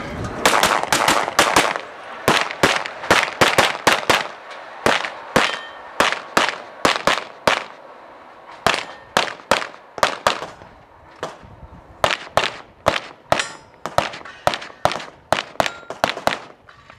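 Rapid pistol fire through a timed competition stage run: about forty-five sharp shots, mostly in quick pairs and short strings, with a pause of about a second midway.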